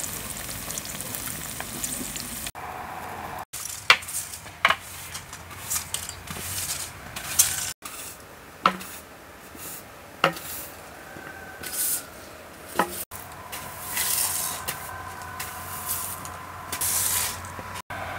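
Eggs sizzling in a frying pan over hot embers, with a metal spoon scraping in the pan. Later come separate broom strokes a second or two apart, sweeping leaves off a stone-tiled patio.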